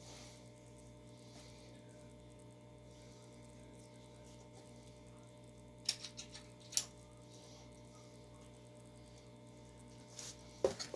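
Steady low electrical hum, with a few short clicks about six seconds in and again near the end from the subwoofer and its packaging being handled.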